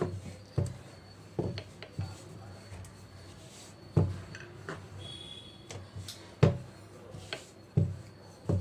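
Wooden rolling pin rolling out puri dough on a tiled countertop: short dull knocks roughly every half second to second and a half as the pin is pushed back and forth, with the loudest knock a little after the middle.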